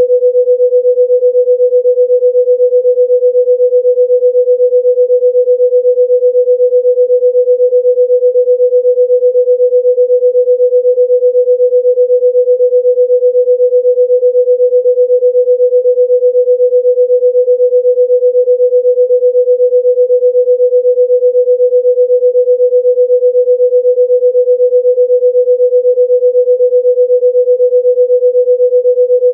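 A single continuous pure electronic tone held at one steady mid pitch, with a slight, fast, regular wobble in loudness. It is a sine-wave 'healing frequency' tone played for relaxation.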